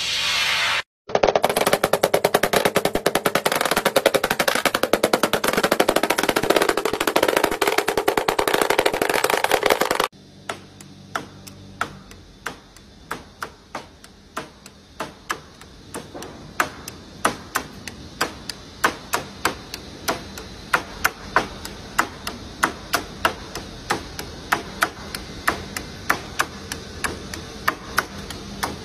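A loud, dense rattle of very rapid clicks for the first ten seconds, then a hammer tapping nails along a metal strip on a wooden frame, about two sharp taps a second.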